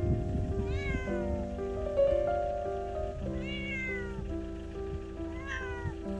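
A cat meowing three times, each meow rising briefly and then sliding down in pitch, over background music.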